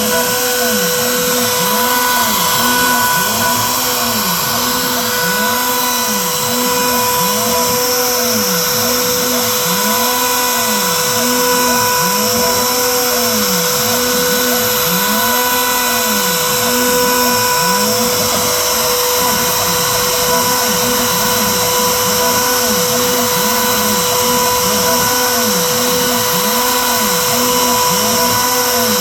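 Shapeoko Pro 5 CNC router running a cut, its Makita router spindle giving a steady high whine. Under the whine, a lower tone rises and falls in pitch about once a second as the machine's axes move.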